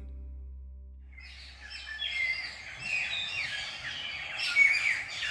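The last held chord of a folk-rock song dies away, and from about a second in wild birds call in a dense chorus of many overlapping short chirps, each sliding down in pitch.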